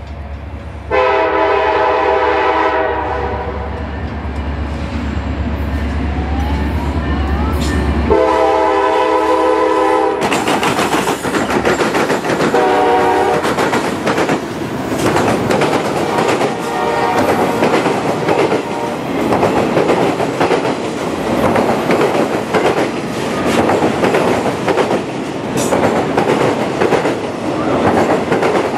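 Norfolk Southern diesel freight locomotives sounding their multi-note air horn in a long, long, short, long pattern, the standard grade-crossing signal, the last blast half buried. The locomotives then pass close by with a loud rumble, followed by the auto-rack cars' wheels clacking over the rail joints.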